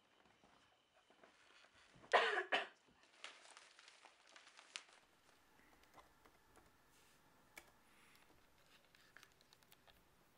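A person coughing, two short coughs about two seconds in, followed by faint scattered clicks.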